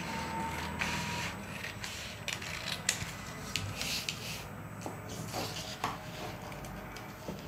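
Scissors cutting through a paper pattern sheet: a string of irregular snips and sharp clicks of the blades, with the paper rustling as it is turned.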